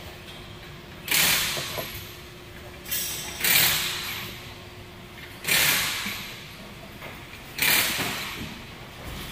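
Locking pliers working a rust-seized M6 license plate bolt: four scraping noises about two seconds apart, each starting sharply and fading over about a second.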